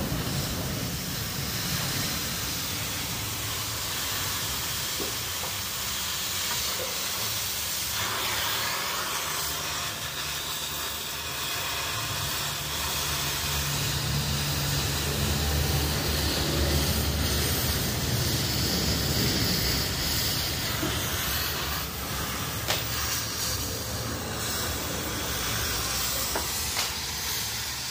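Oxy-fuel cutting torch hissing steadily while it burns through a steel bracket on a truck chassis, with a low rumble underneath.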